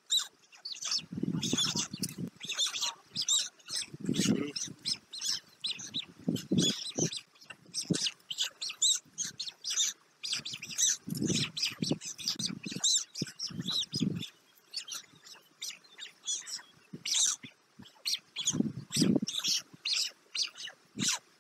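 Birds chirping rapidly and continuously in short high notes, with several low muffled bursts mixed in.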